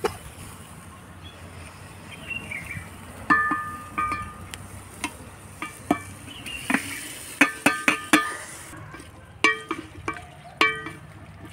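A wooden spoon stirring and scraping in a metal cooking pot, knocking irregularly against its sides so that the pot rings with short metallic clinks. Oil and chopped ingredients sizzle faintly as they fry.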